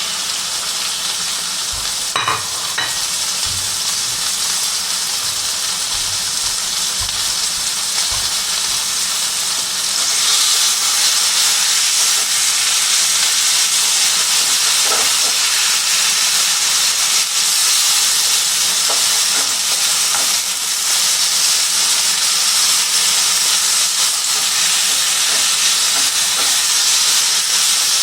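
Chicken pieces sizzling in hot oil in a frying pan, with a few utensil clicks near the start. The sizzle grows louder about ten seconds in.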